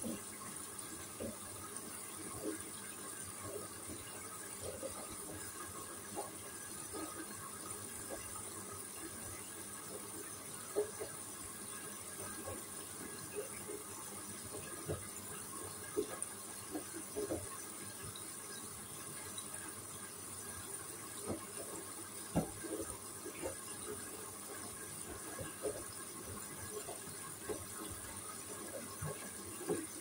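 Hoover front-loading washing machine drum tumbling a wet load, with water sloshing and clothes dropping in irregular soft splashes and thuds, over a steady high hiss.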